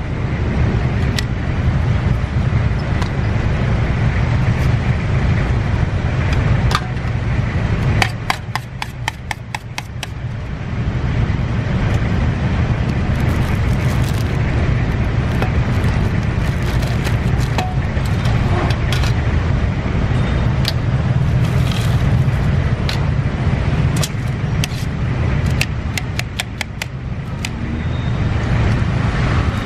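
Steady rumble of road traffic, with sharp clicks of a knife cutting fruit at a street vendor's cart, including a quick run of cuts about eight seconds in.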